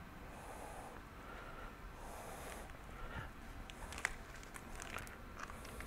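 Faint handling noises as a power cord is plugged into a power strip: cables rustling and a few light clicks, the sharpest about four seconds in.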